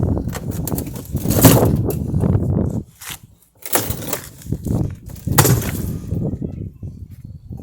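A dishwasher being knocked about and broken apart: three loud crashes roughly two seconds apart, with rattling and scraping between them and a short lull after the first.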